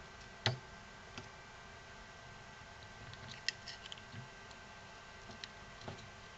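Faint clicks and ticks of a soldering iron tip and a small screwdriver against a circuit board as a soldered component is heated and levered out. The sharpest click comes about half a second in, followed by a few scattered lighter ticks.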